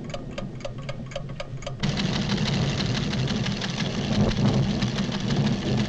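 Cartoon sound effects of a seismograph recorder ticking steadily, about four ticks a second, over a low rumble. About two seconds in, the rumble of the stirring volcano swells suddenly and the ticking turns into a fast, dense clatter.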